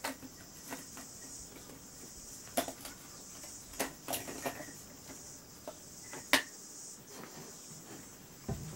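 A head gasket being lifted off a Ford flathead V8's cast-iron block, giving a few scattered light metallic clicks and taps, the loudest about six seconds in, over a steady high hiss.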